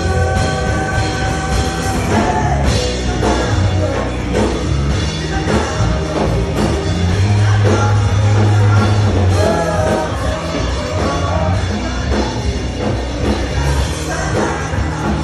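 A live rock band playing with a singer's voice over it, with strong bass notes underneath.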